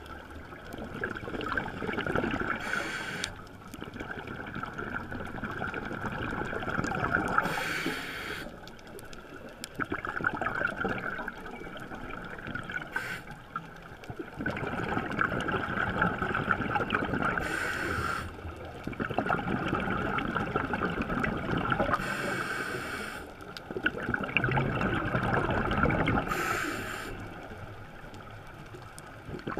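Scuba diver breathing through a regulator underwater: short hisses of inhaling alternate with longer stretches of gurgling exhaled bubbles, about six breaths in a steady rhythm.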